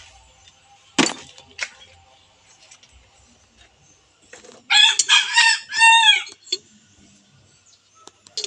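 A rooster crowing once, a loud multi-part call about five seconds in that ends on a long arched note. Two sharp knocks come earlier.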